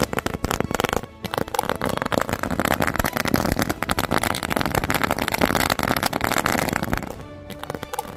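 A whole brick of small chilli (mirchi) firecrackers going off together in a rapid, crackling string of bangs, with short breaks about a second in and again near the end.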